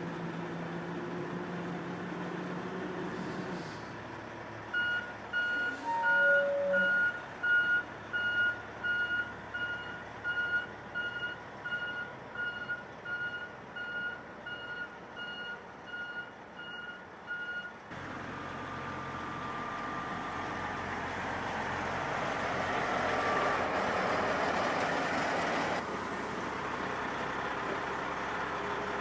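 Oshkosh 8x8 military truck's diesel engine idling, then its reversing alarm beeping steadily, about one and a half beeps a second, growing fainter as the truck backs away. After that the engine runs louder with a rising rush, drops back suddenly near the end, and settles.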